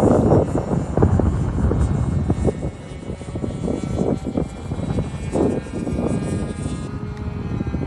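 Two RC model airplanes flying high overhead: a thin, faint, distant motor-and-propeller whine, under a gusty low rumble of wind buffeting the microphone.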